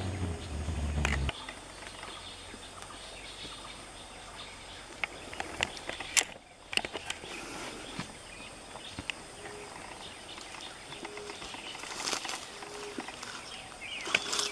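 Outdoor natural ambience: a steady hiss with scattered faint clicks. A low rumble fills the first second or so. From about the middle on, faint short low calls repeat every second or two.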